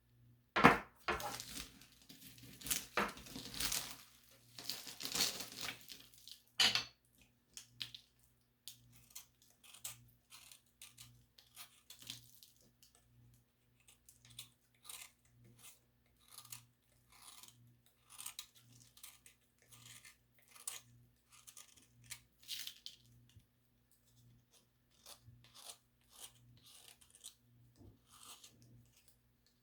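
Small plaster tiles being crushed and crumbled: several loud crunches in the first seven seconds, then a long run of small, sharp crackles.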